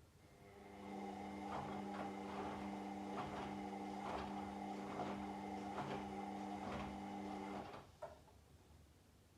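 Washing machine motor turning the drum during the wash cycle: a steady humming whine that builds up over about a second, runs with soft knocks of the tumbling laundry, then stops, followed by a single click.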